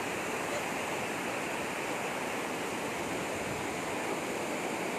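Rushing water of a stream running fast and strong after heavy rain, a steady unbroken roar of flow.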